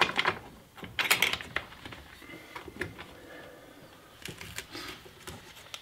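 Hands handling a rod guide and tape on a fishing rod blank: scattered rustles and light clicks, the loudest about a second in.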